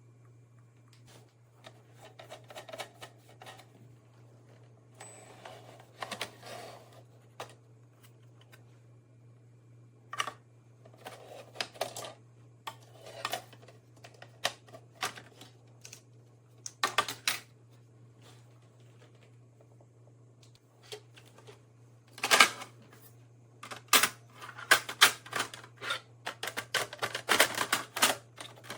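Irregular clicks, taps and short rustles of objects being handled, growing busier and louder in the last several seconds, over a steady low hum.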